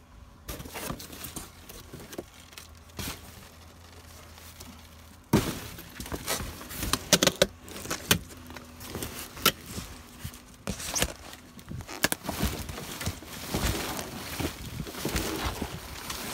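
Rummaging through dumpster trash: plastic bags rustling and items knocking and clattering, irregular and dense after a loud knock about five seconds in. A faint steady hum comes before the knock.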